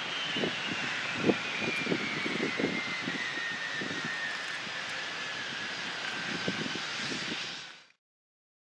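Jet airliner engines passing: a steady rushing roar with an engine whine that falls slowly in pitch, over irregular low thumps. The sound cuts off abruptly near the end.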